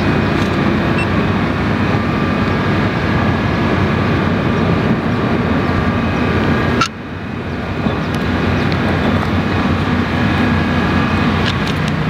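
A steady machine drone with several held tones over a haze of noise. About seven seconds in it cuts off suddenly with a click, then builds back up.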